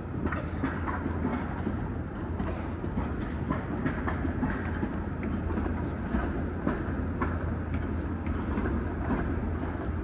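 Steady low rumble with frequent short clicks and knocks scattered through it: city street noise.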